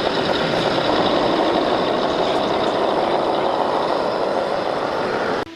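Running water spraying steadily, cutting off suddenly near the end.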